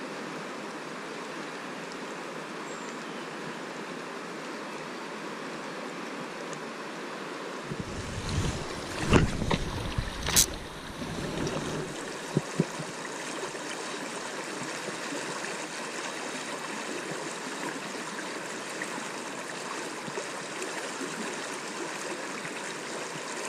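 River Tay water rushing steadily over a shallow, stony stretch. About a third of the way through, a low rumble and a few sharp knocks break in for a few seconds.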